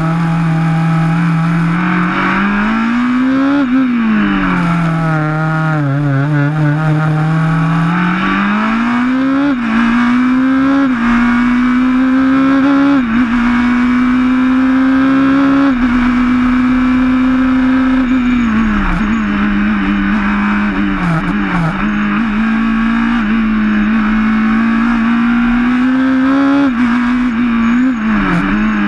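Racing car engine heard from the open cockpit during a hill-climb run, running hard with its pitch climbing and falling as the driver shifts gears and slows for bends. Quick dips and blips come near the middle and again near the end, as on braking and downshifting.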